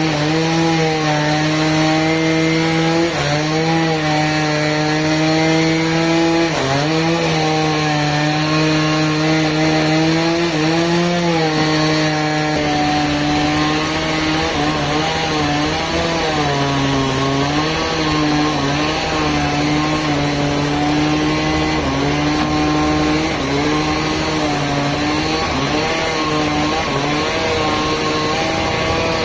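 Engine-driven saw running under load, its pitch sagging and recovering again and again as it cuts through wood.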